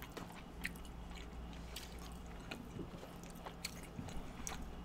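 Faint close-miked chewing of a soft, juicy Indian sweet, with scattered small mouth clicks.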